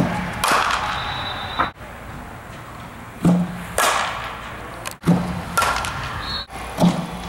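Softball batting practice against a pitching machine: about four sharp hits of a bat on softballs a second or two apart, each a short crack with a low thud, the clips cut off abruptly between swings.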